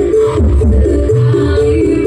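Loud music played through a big carnival sound system, with heavy pulsing bass under a stepping melody line.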